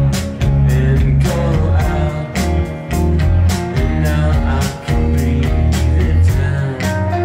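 Live indie rock band playing: electric guitars and bass guitar over a steady drum beat.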